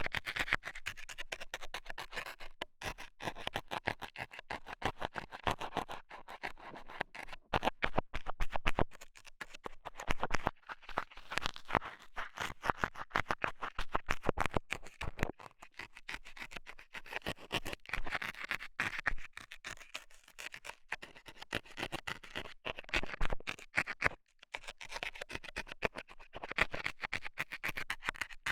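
Metal scaler scraping and poking at a microphone's ear in rapid, irregular scratching strokes, with short pauses now and then.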